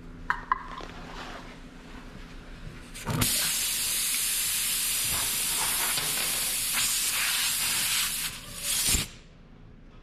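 Two light metal clinks of the plug tool in the glue can, then about three seconds in a loud, steady hiss of air rushing out of the punctured tire around the plug insertion tool, cutting off abruptly near the end.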